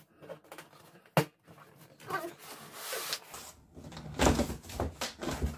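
Heavy cardboard mattress box being handled and opened: a sharp knock about a second in, then cardboard and plastic wrap rustling and scraping, and heavy bumps and scuffs near the end as the box is shifted.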